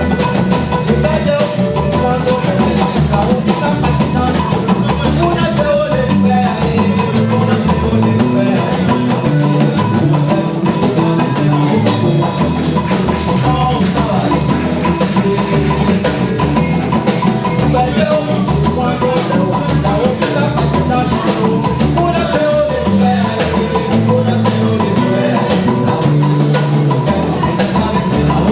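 Instrumental music with drums and percussion keeping a steady, fast, dense beat under pitched melodic notes.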